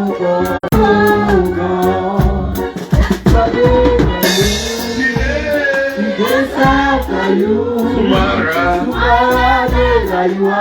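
Worship music: singing voices over a band with a steady beat and a continuous bass line.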